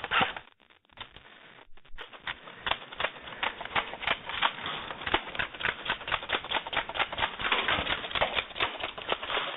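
Airsoft high-capacity magazine being wound by its thumb wheel: a quick ratcheting run of clicks, several a second, starting about two seconds in, as the spring is tensioned to feed BBs.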